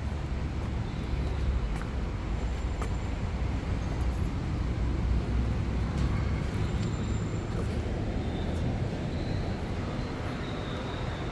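Steady city traffic noise: a continuous low rumble of passing vehicles, with a few faint clicks.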